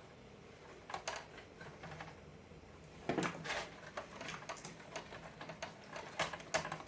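Light plastic clicks and knocks as the knobs on a DisplayPhone's plastic housing are handled and fitted into line. There is a scattered string of them, busiest about three seconds in.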